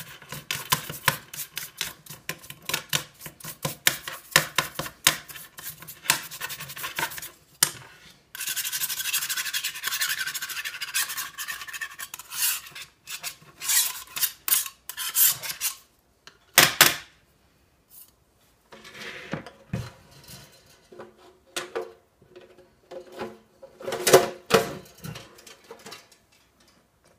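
Hands working on a stainless-steel toaster: quick scratching and rubbing strokes, then a few seconds of continuous rubbing. Later come scattered knocks and clunks, loudest near the end.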